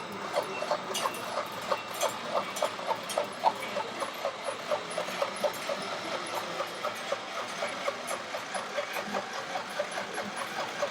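Simulated diesel engine sound from an RC model truck or machine, chugging steadily at about three beats a second, thin and with little bass.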